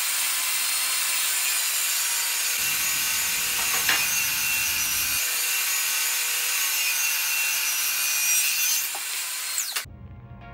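DeWalt sliding compound miter saw running and cutting a 45-degree bevel through painted base molding: a steady high-pitched saw noise. Its pitch drops as it winds down near the end, and it cuts off about ten seconds in.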